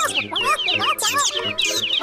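Cartoon farm-animal voices clucking like chickens, with many quick high peeps, over children's background music.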